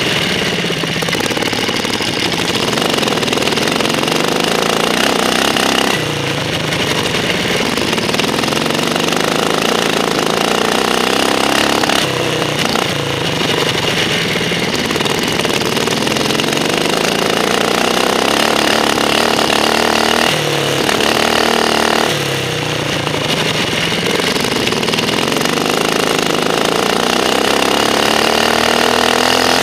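Racing ride-on lawn mower engine running hard at close range, its pitch climbing steadily for several seconds at a time and then dropping back sharply, several times over as the throttle is held on and eased off round the course.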